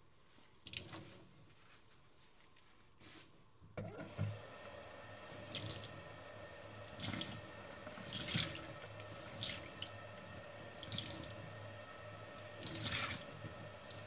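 Large sponge squeezed and wrung in a stainless steel sink, giving short wet squelches. About four seconds in the tap comes on and runs steadily, and the sponge is squeezed again and again under the stream to rinse the foam out, squelching roughly every second or so.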